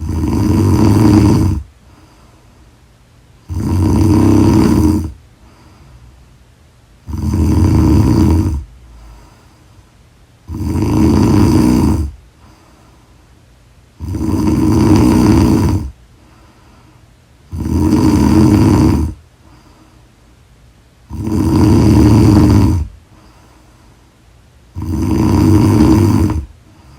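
A woman snoring loudly in her sleep. There are eight snores, each lasting about a second and a half, coming evenly about every three and a half seconds with quieter gaps between.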